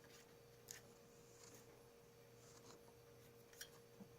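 Near silence: a few faint clicks and light rubbing from ribbon-cable connectors being handled and pushed onto their pin headers, over a faint steady hum.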